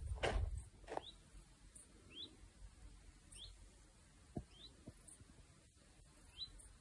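Footsteps on a dirt mountain path in the first second, then a bird repeating a short, faint rising chirp every second or so, five times, with two soft knocks midway.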